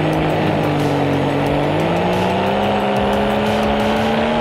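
Paramotor's two-stroke engine and propeller running steadily in flight, its pitch rising a little over the second half, with wind noise over the microphone.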